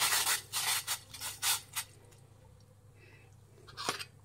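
Spoon scraping dry jelly powder out of a plastic bowl into hot water in a steel pot. There is a run of short scraping rustles in the first two seconds, then a few clicks near the end.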